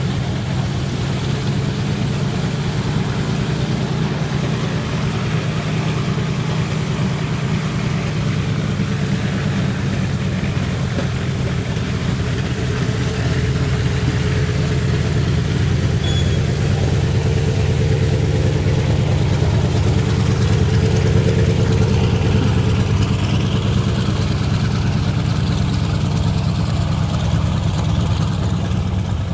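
Antonov An-2's nine-cylinder radial engine idling on the ground, a steady low throb that grows slightly louder about halfway through.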